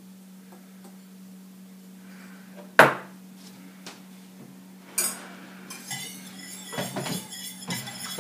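Sharp clinks of glass prep bowls against a stainless saucepan, the loudest about three seconds in and another near five seconds, then a whisk stirring and clattering in the saucepan from about six seconds on, mixing the wet ingredients.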